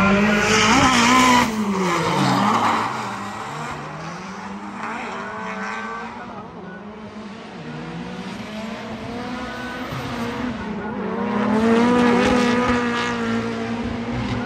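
Drift car engine revving up and down with tyre squeal as it slides. It is loudest at the start, drops in revs about two seconds in, and swells again about twelve seconds in.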